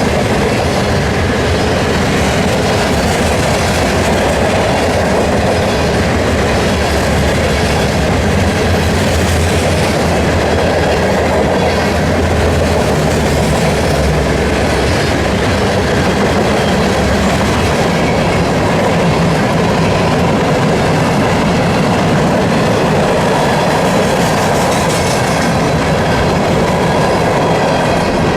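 A freight train's cars rolling past, a steady loud noise of steel wheels on rail. A deep drone is strongest in the first half and eases off about halfway through.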